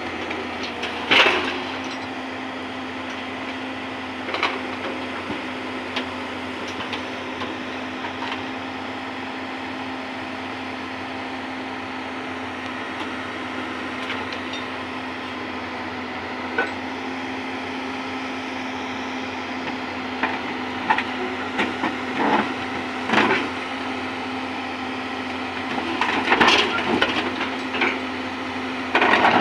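Hyundai tracked excavator's diesel engine running at a steady hum, with sharp metallic clanks and knocks from the machine as it moves: one about a second in, a few scattered after, and a cluster in the last third.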